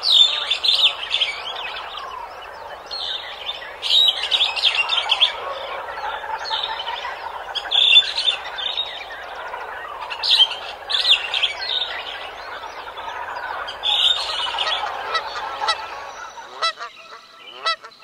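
Waterfowl calling: many overlapping wavering calls, with bursts of high chirping every few seconds. The calling thins out near the end, leaving a few sharp clicks.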